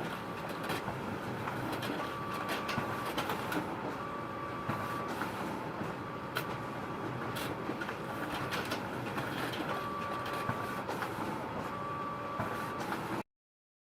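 Photocopier running: a steady mechanical whir with frequent clicks and a short whine that recurs about every two seconds. The sound cuts off suddenly near the end.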